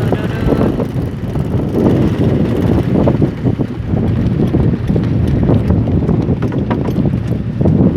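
Fishing boat's engine running with an uneven knocking, mixed with wind rumble on the microphone.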